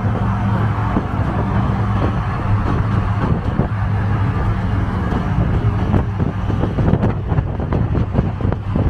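Auto-rickshaw's small engine running steadily on the move, heard from inside the open cab with road noise. Short body rattles and knocks come thicker in the second half.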